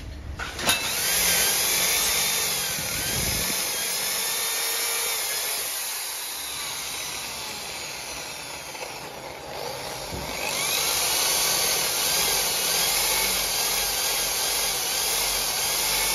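Hand-held electric grinder running against the steel face of a car's crankshaft pulley, a wavering whine over a hissing grind of metal. The grind eases off for several seconds in the middle, then bears down hard again about ten seconds in.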